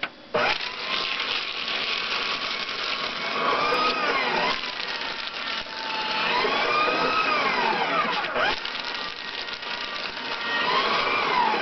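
Small electric paper shredder shredding sheets of paper, its motor whine rising and then falling away three times as it starts and stops with each sheet fed in.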